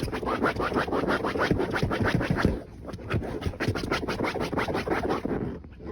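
A dog scratching rapidly with its paws at a surface, a quick run of scratching strokes with a brief pause about two and a half seconds in.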